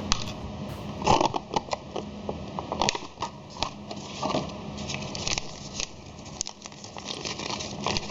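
Toy packaging being opened and handled, with a run of irregular clicks and short handling noises.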